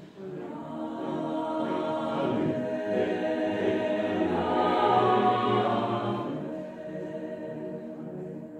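Mixed choir singing a gospel piece a cappella, many voices in held chords. The sound swells to its loudest about five seconds in, then softens toward the end.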